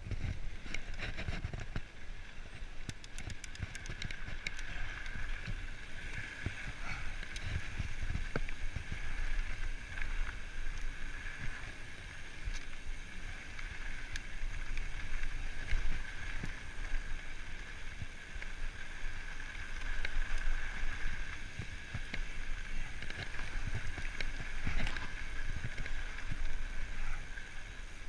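Mountain bike rolling along a dirt trail: tyre noise on dirt and rock with wind buffeting the microphone, and short rattles and clicks from the bike over bumps.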